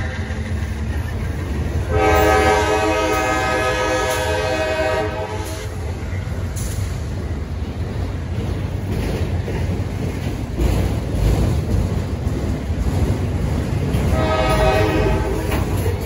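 Air horn of a CSX freight's lead GE locomotives sounding two blasts as the train pulls away: one long blast about two seconds in and a shorter one near the end. Under it, the steady rumble and wheel clatter of autorack freight cars rolling past.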